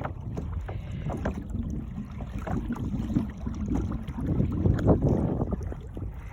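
Water slapping against the hull of a Hobie sailing kayak cruising under sail, in irregular splashes, with wind rumbling on the microphone.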